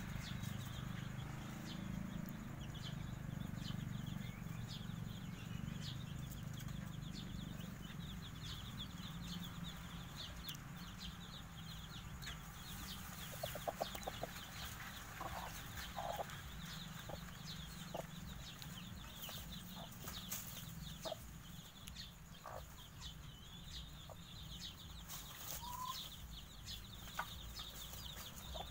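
Five-day-old Javanese kampung chicks peeping in many short, high chirps, with a few low clucks from an adult chicken scattered through the middle, over a steady low background rumble.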